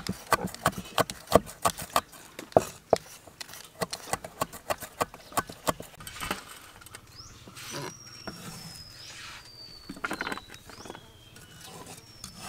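Cleaver chopping red chillies on a wooden chopping block: quick sharp knocks about three or four a second that stop about six seconds in. After that come a few scattered, fainter knocks as the chopped chilli is scooped up with the cleaver and tipped onto a metal tray.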